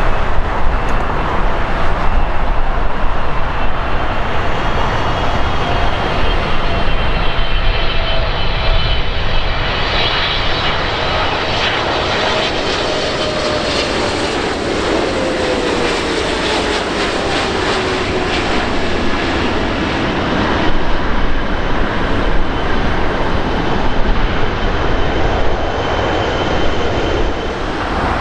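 Boeing 777-300ER's GE90-115B jet engines on a landing: a steady loud jet rumble with high whining fan tones, and a whine that falls in pitch partway through as the airliner passes.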